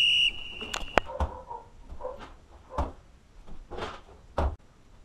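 A Tabata interval-timer app on a phone gives a high beep marking the start of a 20-second work round. Then come several thuds and knocks as a person jumps up onto a bench and lands on it.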